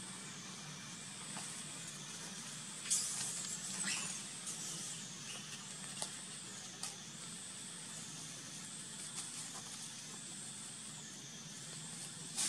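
Steady high-pitched insect drone that dips in pitch every few seconds, with a short louder rustle and a falling squeak about three seconds in, and a few light clicks.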